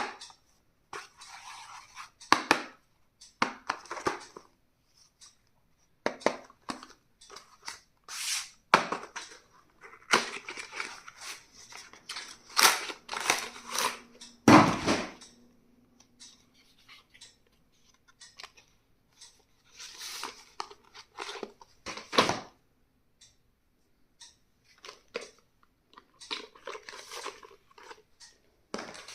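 Stationery packaging being opened and handled by hand: intermittent crinkling and tearing of packaging with sharp clicks and taps of the items, separated by short pauses. One louder thump about halfway through.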